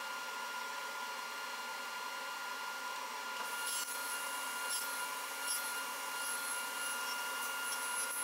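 Table saw running steadily with a constant whine. From about three and a half seconds in, a higher hiss joins and a few light taps are heard.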